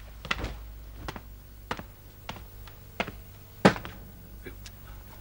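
Slow footsteps on a hard floor, a soft knock about every two-thirds of a second, with one louder knock near the end.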